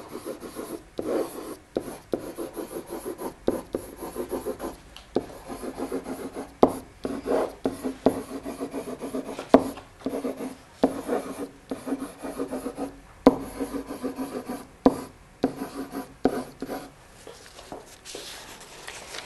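Handwriting: a pen scratching across the writing surface in quick, short strokes with brief pauses between them, as a word and a half is written out. The strokes stop shortly before the end.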